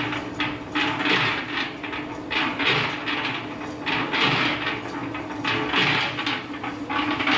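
Skiva 100-litre electric cement mixer running empty: a steady motor hum, with a rattle that repeats about every second and a half as the drum turns.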